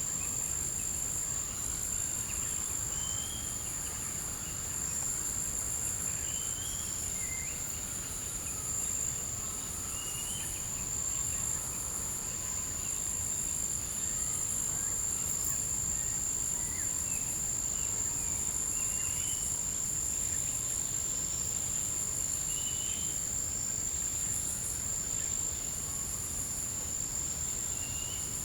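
Tropical forest insect chorus: one insect holds a steady high-pitched whine while others pulse in a rapid, wavering trill above it. Short chirps from another animal come every few seconds.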